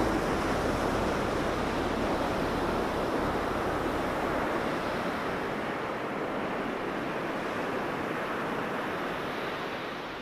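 Ocean surf breaking and washing up on a sandy beach, a steady rushing wash that slowly gets quieter toward the end.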